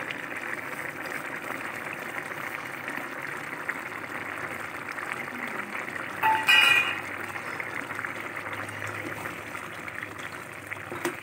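Thick pumpkin and prawn curry bubbling and sputtering as it simmers in the pan. A metal spatula scrapes briefly against the pan about six and a half seconds in.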